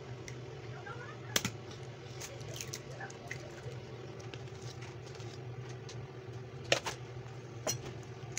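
Eggs knocked against the rim of a ceramic bowl and cracked open: a few sharp knocks, the loudest near the end, over a steady low hum.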